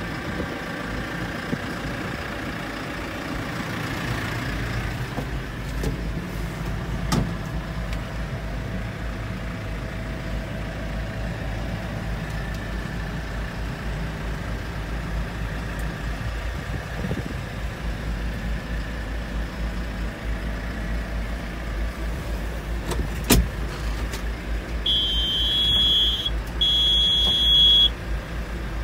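JCB 3CX Sitemaster backhoe loader's diesel engine idling steadily, heard from inside the cab. A couple of sharp knocks, then near the end two long, high electronic beeps from the cab, about a second each.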